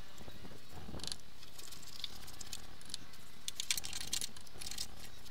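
Paintbrush bristles scratching and dabbing as Hammerite Kurust rust converter is brushed onto bare, ground-back steel of a van's sliding-door step: a run of short, scratchy strokes, busiest about a second in and again in the second half.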